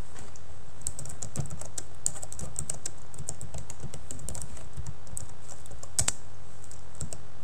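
Typing on a computer keyboard: quick, irregular keystrokes, with one louder key strike about six seconds in, over a steady low hum.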